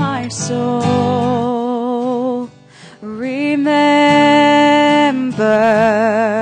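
Worship singing with acoustic guitar: a singer holds long notes with vibrato, with a short break a little before halfway.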